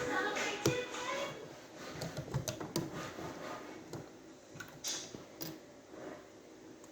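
Small plastic model-kit parts being handled and clicked together, with irregular sharp clicks and light rattles.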